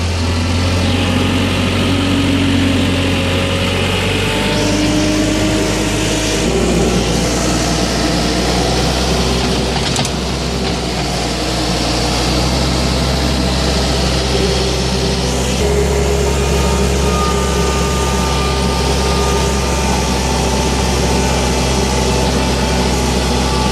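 1998 Gehl 5625DX skid steer loader's engine running under operation, its pitch stepping to a new level a few times (about six seconds in and again about sixteen seconds in) as the foot throttle is worked.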